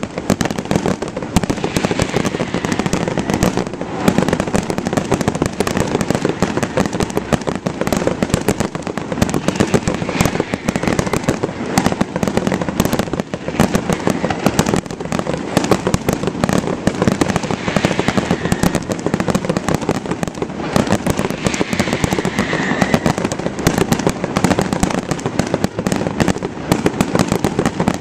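Fireworks going off without a break: a dense crackle of many sharp pops every second, steady in loudness.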